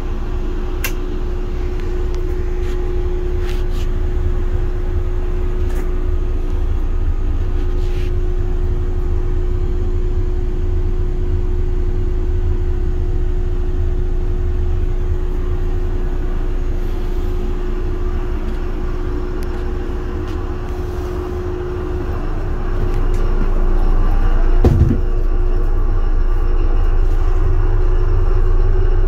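Heard inside the cab of a CSX GE ET44AH diesel-electric locomotive: a steady low diesel-engine rumble, with a steady hum over it that stops about three-quarters of the way through. After that the rumble grows louder, and a single thump comes near the end.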